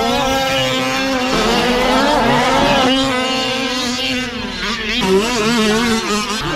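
Several large-scale RC cars' two-stroke petrol engines racing together, each revving up and easing off through the corners, the pitches overlapping and rising and falling.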